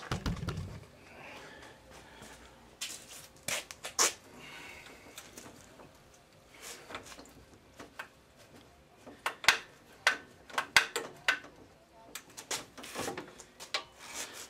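Scattered metal clicks, taps and knocks as the rusted, seized throttle linkage of an old outboard motor is worked back and forth by hand. There is a low thump at the start, and the clicks come in a few clusters.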